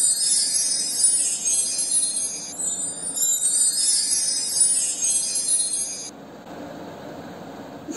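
Jingle bells and chimes tinkling in a loop that repeats about every two and a half seconds, then stopping abruptly about six seconds in, leaving quieter room sound.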